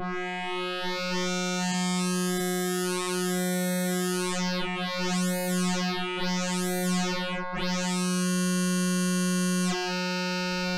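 Eurorack synthesizer tone: a sine wave through the After Later Audio Valley wavefolder, folded with a blend of odd and even harmonics. It holds one steady note while its upper harmonics swell brighter and fall back several times as a knob is turned.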